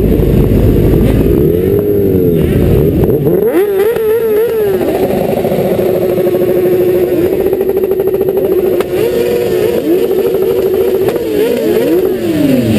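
Several motorcycle engines in a group ride, their pitches rising and falling as riders rev and ease off, with one steadier engine note for a few seconds in the middle. Heard from a helmet-mounted camera, with wind rumble on the microphone in the first second or so.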